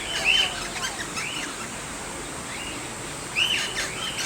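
Eastern rosella calling: short, arched chirps, a cluster of them near the start and another near the end, with fainter twittering in between.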